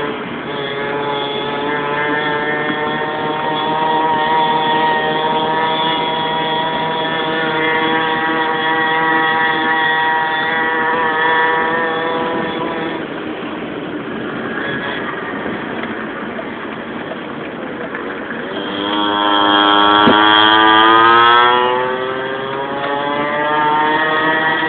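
Minimoto (pocket bike) engine running at a steady pitch, then revving up in a loud rising whine about 19 seconds in before easing off.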